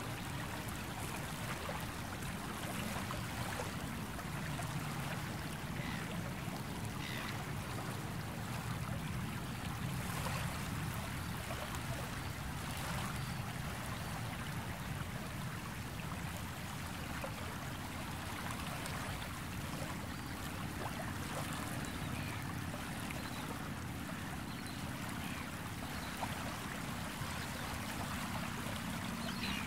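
Sea waves washing onto a beach at a steady level with no big surges, with brief small splashes scattered through.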